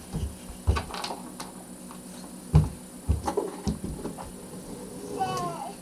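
A toddler's feet stomping on a rug-covered floor: a handful of dull thumps spread over a few seconds, with lighter knocks between them. A child gives a short high-pitched vocal near the end.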